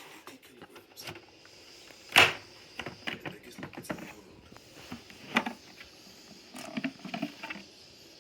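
Scattered clicks and knocks of objects being handled, with one sharper knock about two seconds in and smaller clusters after it. No motor is running.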